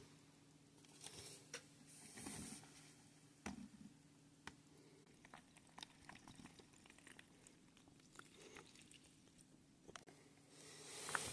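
Near silence: faint scattered clicks and light taps of small plastic toy parts being handled, over a faint steady low hum.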